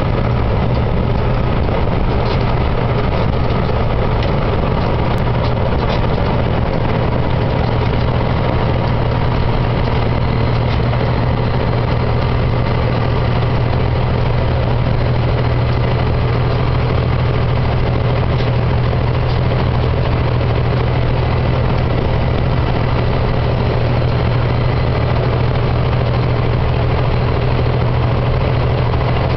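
Engine and road noise heard from inside a vehicle's cab cruising at highway speed: a steady low drone that holds the same pitch throughout.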